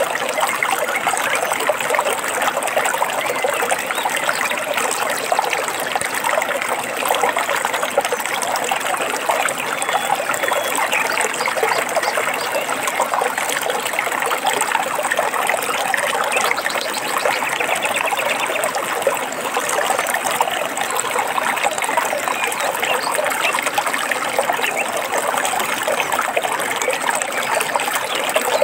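Flowing water trickling and splashing steadily, with a few faint bird chirps here and there.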